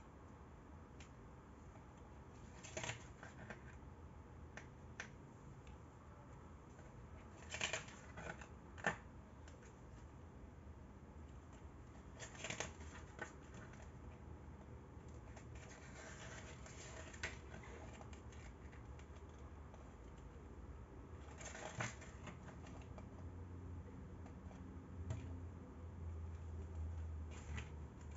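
Pages of a paper CD booklet being turned and handled, with scattered soft rustles and sharp little clicks at irregular intervals. A faint low hum comes in during the last third.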